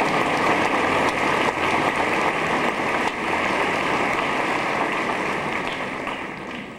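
Theatre audience applauding, a dense wash of clapping that dies away near the end.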